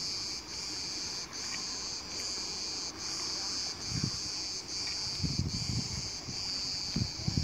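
Cicadas in the pine trees: a steady shrill chorus that dips briefly a little more often than once a second. Gusts of wind buffet the microphone about four seconds in and again from about five seconds to near the end.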